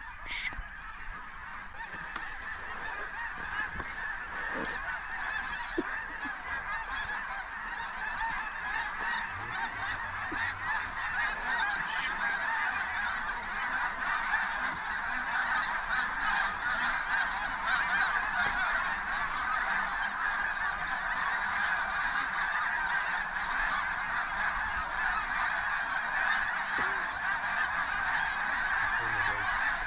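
A large flock of snow geese calling: a dense, unbroken chorus of honks that swells steadily louder as the flock comes in.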